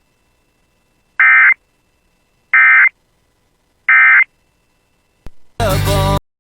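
Emergency Alert System end-of-message data tones: three short, equally spaced bursts of shrill digital screech, about a second and a third apart, marking the close of the alert. Near the end comes a click and then a brief loud burst of noise.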